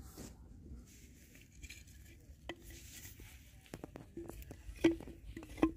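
Hollow knocks of bamboo pieces struck against each other as bamboo pipe traps are handled and fitted onto stakes. There are a few short knocks, each with a brief hollow ring, the two loudest near the end.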